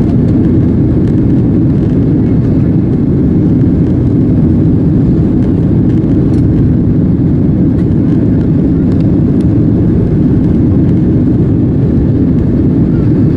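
Steady, loud rumble of a Boeing 767's jet engines and rushing air, heard inside the cabin at a window seat over the wing during the climb after take-off.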